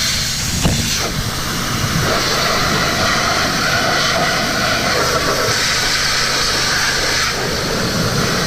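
Kärcher 2400 PSI pressure washer spraying: a steady hiss of the high-pressure water jet hitting the dirt bike, over the steady low hum of the washer's motor.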